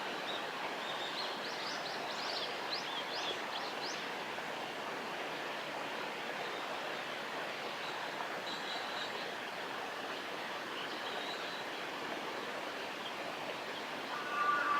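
Steady rush of water flowing in a small river. Between about one and four seconds in, a bird gives a run of short, high, rising chirps.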